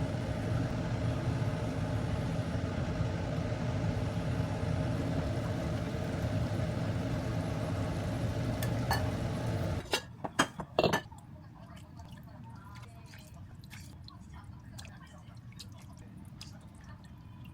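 A steady motor hum, likely a kitchen appliance, cuts off abruptly about ten seconds in. A few knocks follow, then light clinks and clicks of dishes or utensils.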